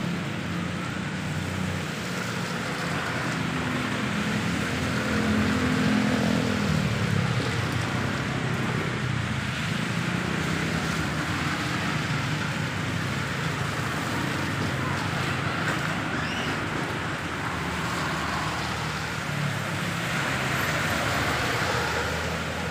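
Road traffic passing on rain-wet asphalt: engines and the hiss of tyres on the wet road over steady rain noise. In the first third a vehicle passes with a falling engine note, and near the end the tyre hiss swells as another vehicle goes by.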